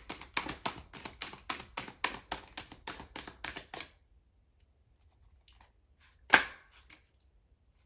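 Deck of tarot cards being shuffled by hand: quick card flicks about four a second for the first four seconds, then a pause, then a single sharp slap about six seconds in as a card is put down on the table.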